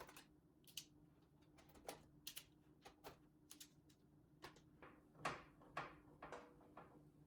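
Near silence, with faint, irregular clicks and light taps of computer parts being handled during disassembly.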